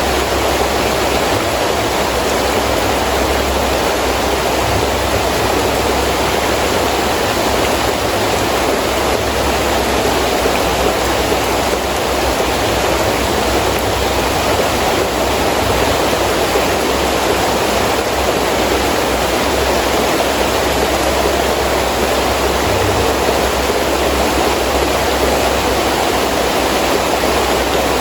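Heavy rain pouring steadily in a windy storm, a dense, even hiss of water that does not let up.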